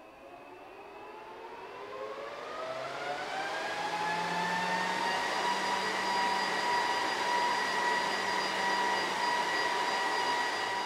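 Lenovo ThinkSystem SR650 rack server's cooling fans spinning up at power-on: a whine that rises in pitch and grows louder over the first five seconds, then holds as a steady high whine at full speed.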